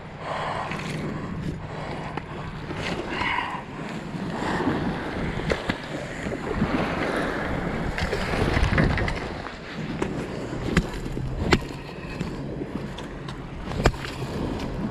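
Wind buffeting the microphone over waves washing on a gravel shore, with a few sharp clacks of beach stones as a caught coho salmon is handled on the gravel.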